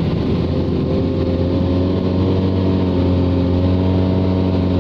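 An engine running steadily under load, its pitch edging slightly higher after about a second.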